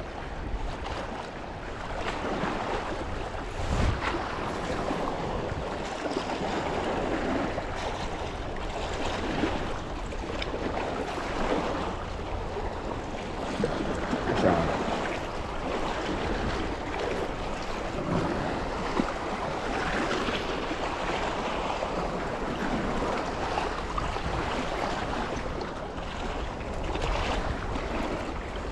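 Steady rushing noise of Columbia River water, with wind buffeting the microphone in occasional gusts.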